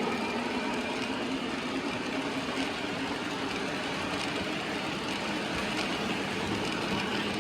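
Lionel Vision Line Commodore Vanderbilt O gauge model locomotive running along the track: a steady rolling and motor noise with a few faint clicks.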